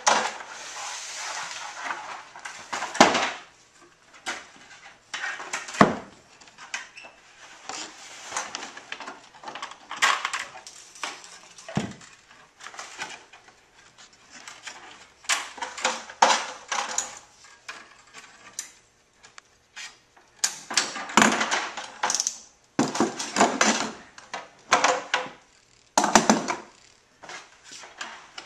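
Steel banding strap and banding tools being handled around an OSB wooden crate: irregular metallic rattles, scrapes and knocks against the wood, coming in separate bursts with short pauses between.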